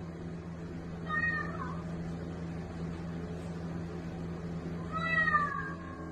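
Bengal cat meowing twice: a short call about a second in and a louder one near the end, each falling in pitch.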